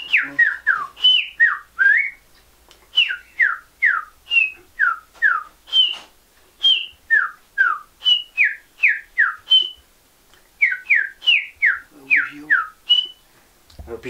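A man whistling through pursed lips in imitation of the pássaro-preto (chopi blackbird) song: a quick string of short whistled notes, most sliding sharply downward, some held briefly high. There is a short break about ten seconds in.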